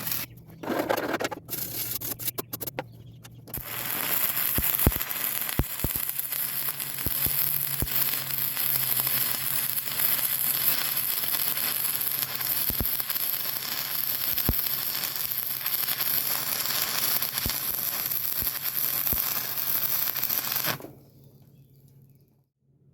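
Stick welding with 3/32-inch 6010 electrodes on steel: the arc strikes in a few short spurts, then crackles and sizzles steadily for about seventeen seconds before breaking off suddenly near the end.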